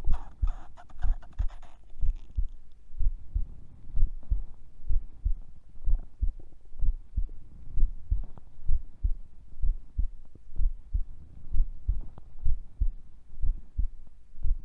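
A woman's heartbeat recorded during sleep: steady low thumps about once a second. A short stomach gurgle sounds over the first two seconds.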